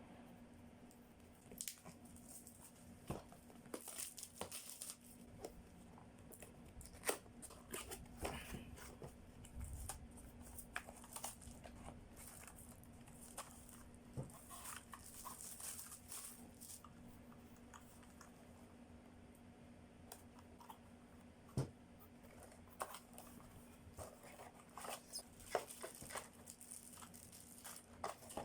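Packaging of an RK68 keyboard being unpacked by hand: plastic wrap and paper crinkling and tearing, with scattered clicks and taps of handling, over a faint steady hum.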